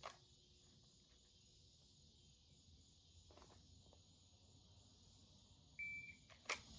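Near silence, then a shot timer's short high start beep about six seconds in, followed by two quick clicks near the end.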